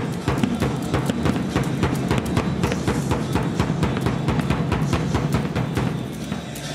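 Drumming with many quick, dense beats over a steady low din.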